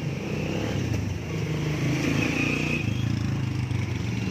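Motor vehicle engine running on the road with road noise, its steady drone swelling louder through the middle and easing toward the end.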